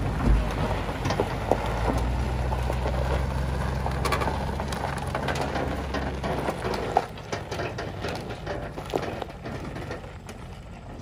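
A pickup truck engine idling close by, a steady low hum that stops about six seconds in, over crunching steps on gravel and rustling.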